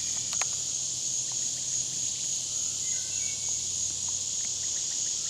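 Insect chorus, katydids or cicadas, giving a continuous high-pitched buzz that holds steady throughout.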